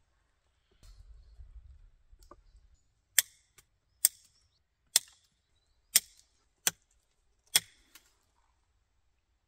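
An axe chopping wood: six sharp strikes about a second apart, after a faint low rumble in the first two seconds.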